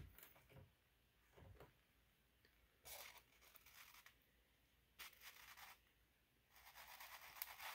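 Near silence with a few faint, brief scrapes and rustles: an eggshell being handled against the cardboard tube of a flashlight egg candler.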